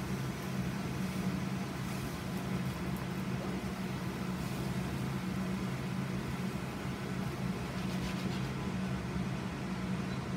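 Steady low hum of a kitchen ventilation fan over the sizzle and steam of vegetables cooking in chicken broth in a stainless skillet, stirred with a silicone spatula.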